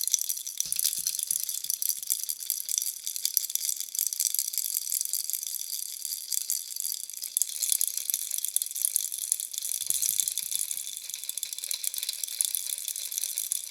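A bunny baby rattle shaken without pause, giving a dense, fast, high rattle, with a few soft low bumps from handling about a second in and again near the ten-second mark.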